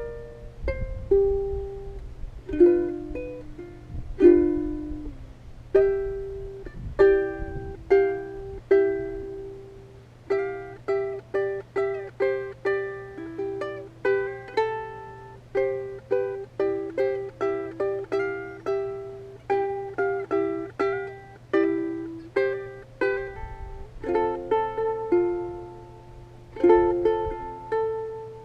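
Background music: a plucked-string instrument playing a melody of single notes and short chords, each note dying away quickly.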